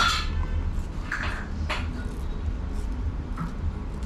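Twisted cotton thread zipping across the skin of the chin as facial threading plucks out the hairs: four short, sharp zips, the first the loudest, over a low steady hum.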